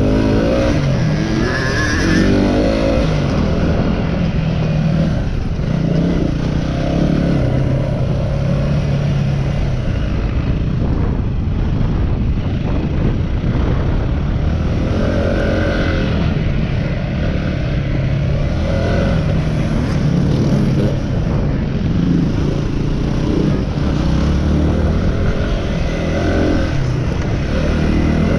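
Yamaha WR250R's single-cylinder four-stroke engine revving up and down under hard riding, its pitch rising and falling again and again with the throttle and gear changes.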